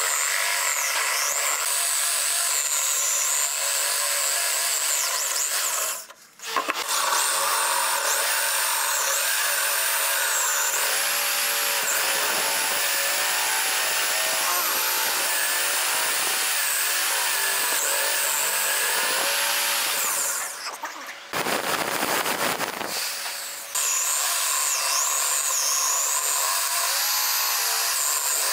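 Corded electric drill boring holes in a wooden board with a Forstner bit, its motor whine dipping in pitch again and again as the bit bites into the wood. The drilling stops briefly about six seconds in, and around twenty-one seconds a rougher, noisier sound takes over for about two seconds before the drilling resumes.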